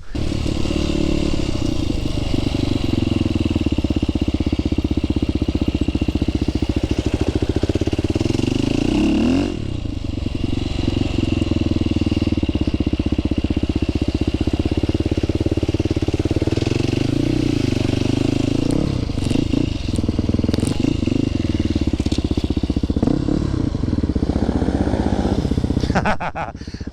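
Dirt bike engine running steadily while riding a trail, with a brief drop in engine sound about nine to ten seconds in.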